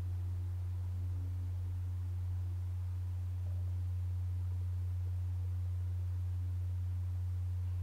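A steady low drone, one deep pure tone held without change, with faint soft higher tones drifting over it.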